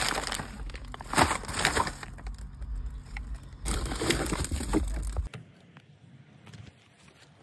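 Paper fast-food bags and wrappers crinkling and crumpling as they are grabbed up by hand, in several bursts, stopping suddenly about five seconds in.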